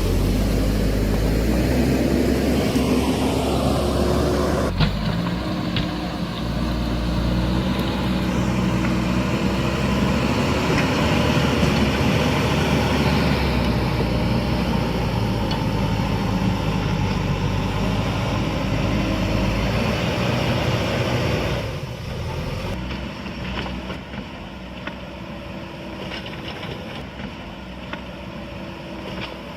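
JCB backhoe loader's diesel engine running and working, its pitch shifting as the load changes. It becomes quieter about two-thirds of the way through.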